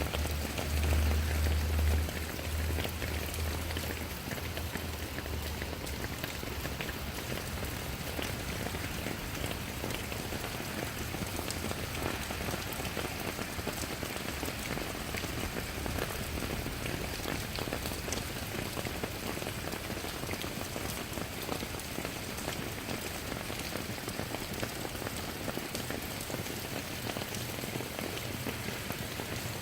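Steady rain falling, an even dense patter of drops. A low rumble underlies it for the first few seconds, strongest about a second in, and returns briefly near the end.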